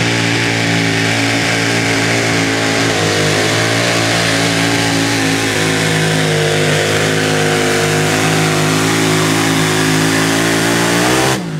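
Competition pulling tractor's engine running loud and steady at full throttle through a pull, then dropping off sharply near the end as the revs fall away.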